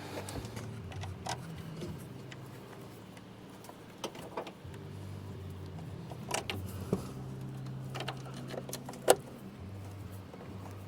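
Scattered small metallic clicks and clinks of hand tools and 10 mm bolts while a tail light is fastened onto a pickup, with one sharper click about nine seconds in, over a steady low hum.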